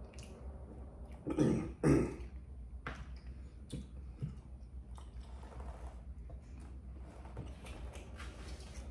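A man clears his throat twice in quick succession, about a second and a half in, over a steady low hum; a few faint clicks follow.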